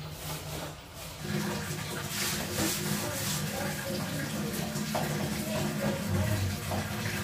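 Water splashing and sloshing while bathroom wall tiles are scrubbed, starting about a second in and echoing in the small tiled room, over a steady low hum.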